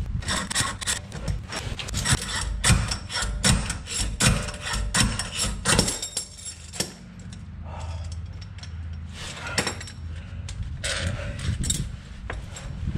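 Hand tools clinking, knocking and scraping on the metal of the car's underside and subframe in a series of irregular sharp clicks, with a low hum in the middle.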